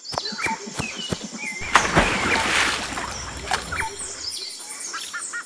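Birds chirping with short calls. Water splashes loudly through the middle, with a low rumble and a few sharp knocks.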